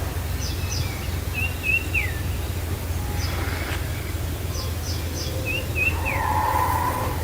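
Baya weaver birds calling: twice, a few quick high chips followed by a short warbling phrase that ends in a falling whistle. A steady low rumble runs underneath.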